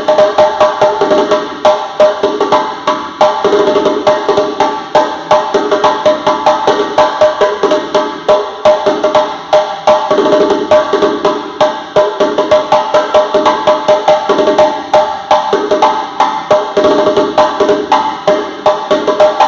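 A drum played in a fast, steady rhythm, several sharp strokes a second, with a ringing pitch under the strokes.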